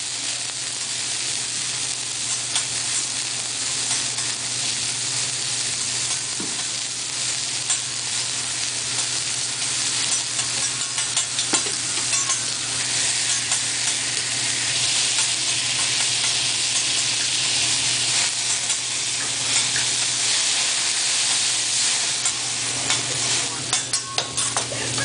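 Food sizzling and crackling steadily on a hot hibachi griddle, with a steady low hum underneath.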